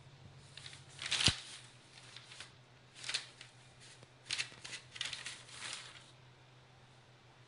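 Newspaper crinkling and rustling in separate bursts as a kitten pounces on and paws at it. The loudest burst, about a second in, comes with a thump.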